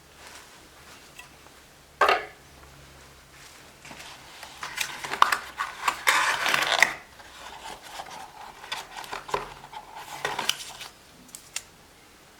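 Hands handling action-camera parts and packaging: a sharp click about two seconds in, then a stretch of clattering and scraping, loudest in the middle, and scattered clicks that stop near the end.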